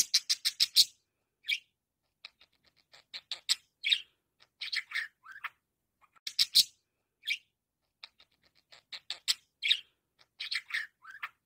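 Budgerigar chattering in short bursts of quick clicky chirps and warbled notes, with brief pauses between bursts. There is a fast run of ticks at the start and a few short falling notes along the way.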